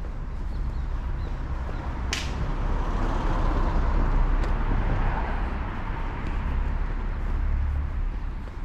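A car passing on the street, its tyre and engine noise swelling to a peak about four seconds in and then fading away, over a steady low rumble. A sharp click about two seconds in.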